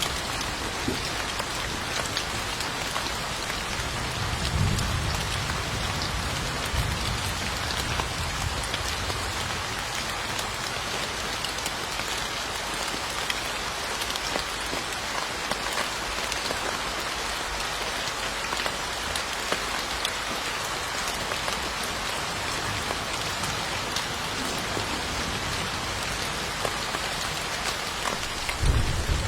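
Steady rain falling on a surface, a dense, even patter of drops. A low rumble swells briefly about five seconds in and again right at the end.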